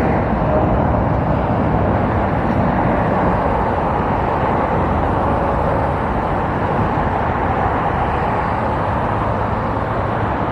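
Boeing 787's jet engines giving a steady, broad roar during its takeoff, easing off slightly near the end.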